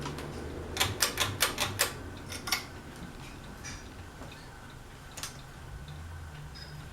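A quick run of about six sharp clicks, then two more and a single click a few seconds later, from working the switches of a Harbor Breeze Aristocrat ceiling fan as it is turned off and set to reverse, with a faint low hum underneath.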